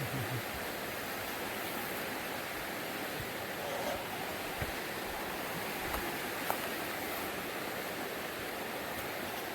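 River water rushing steadily over rocks, the river running high after heavy rain.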